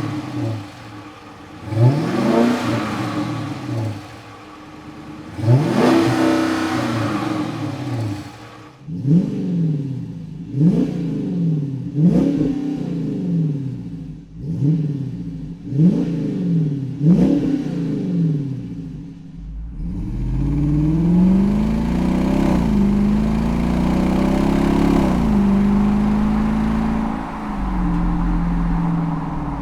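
5.7L HEMI V8 of a Dodge Charger through a Corsa Sport cat-back exhaust with X-pipe and straight-through mufflers, over stock manifolds. It is revved: three long revs, then a run of about eight quick throttle blips, then lower, steadier running with slow swells in pitch from about two-thirds of the way in.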